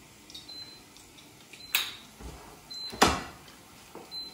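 Cooking handling sounds at the stove: two sharp clanks of cookware about a second apart, the second the louder, with a few faint short high beeps.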